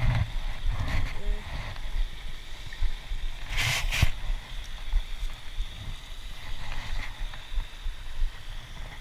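Low, gusting rumble of wind buffeting and handling noise on a body-worn camera as the wearer moves about, with a short rustling burst about three and a half seconds in.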